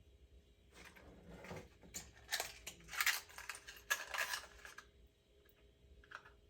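Clicks, clinks and rustling from small hard parts being handled, in an irregular cluster that starts about a second in and fades out just before five seconds.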